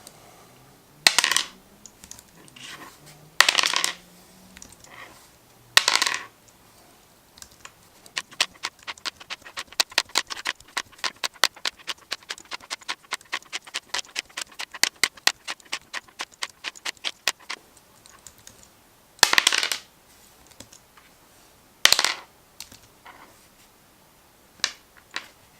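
A 3D-printed plastic five-sided die (triangular prism) being rolled again and again on a cutting mat: sharp clacks as it lands and bounces to rest, with a long rapid run of many small clicks through the middle.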